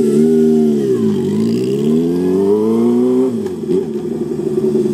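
Honda CB400Four's inline-four engine, breathing through a short-pipe aftermarket exhaust, pulling away. The revs dip about a second in, climb steadily, then fall sharply a little after three seconds in, and the engine carries on lower and slightly quieter as the bike rides off.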